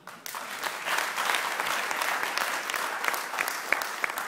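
Audience applauding: many hands clapping in a dense patter that builds over the first second.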